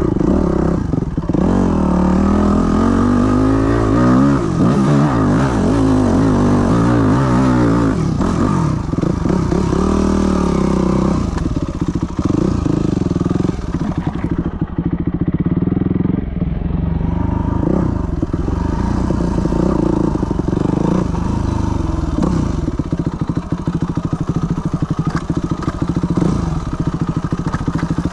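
Yamaha WR250F 250 cc single-cylinder four-stroke dirt bike engine being ridden: the revs rise and fall again and again through the first ten seconds or so, then settle into lower, steadier running.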